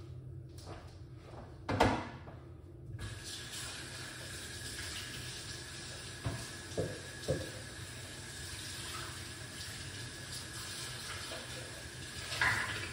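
Steady trickle of running liquid. There is a sharp knock about two seconds in, a few light taps a few seconds later, and a brief louder clatter near the end.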